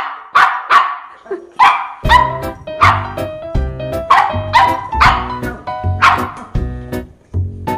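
West Highland White Terrier puppy barking repeatedly in short, sharp barks, about two a second, over background music whose steady beat comes in about two seconds in.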